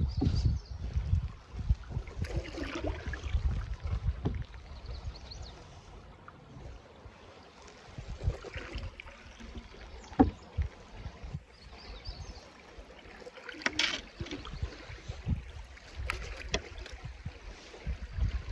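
Canoe paddling: occasional splashes and drips from paddle strokes and water on the hull, with wind rumbling on the microphone in the first few seconds.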